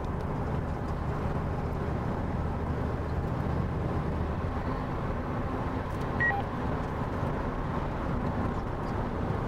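Steady road and engine noise heard inside the cabin of a moving vehicle, with a short high beep about six seconds in.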